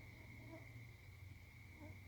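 Faint chorus of crickets, one steady high trill, over a low hum.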